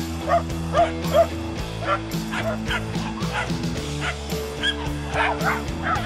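Background music with sustained chords, over which a Jack Russell terrier barks repeatedly, a few short barks a second.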